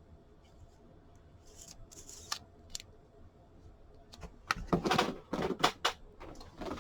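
Light clicks and rustles of trading cards and hard plastic card holders being handled on a table, with a cluster of louder clacks about four and a half seconds in.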